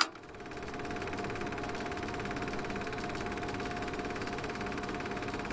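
Steady mechanical whirring hum of a logo-animation sound effect, with a fast fine rattle and a held tone, swelling up within the first second and then holding even.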